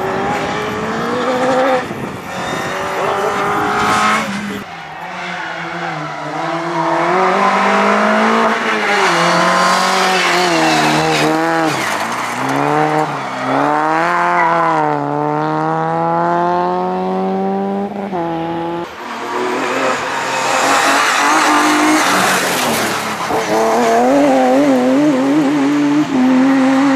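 Rally car engines revving hard on a gravel stage, climbing in pitch through the gears with short drops at each shift and lift-off. The sound changes abruptly twice as one car gives way to another.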